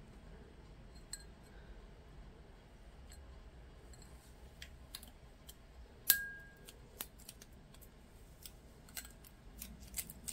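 Adhesive vinyl stencil being peeled off an etched glass champagne flute: scattered small clicks and crackles. The sharpest click, about six seconds in, rings briefly like glass.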